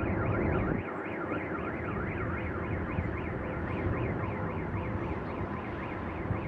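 Electronic alarm siren sweeping quickly up and down, about three times a second, over a low rumble that drops away about a second in.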